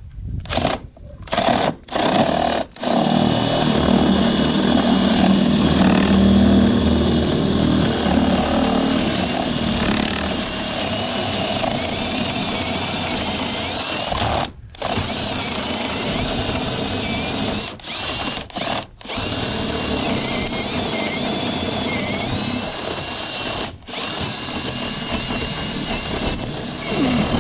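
Milwaukee cordless drill boring a cable hole through house siding into a wooden 2x4. The trigger is pulsed a few times at first, then the drill runs steadily, with brief stops about halfway through and again later.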